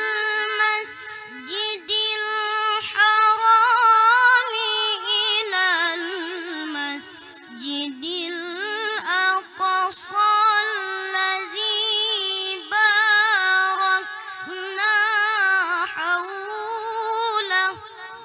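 A boy's high voice reciting the Quran through a microphone in the melodic tilawah style: long held phrases with wavering, ornamented pitch. The phrase ends and the voice drops away near the end.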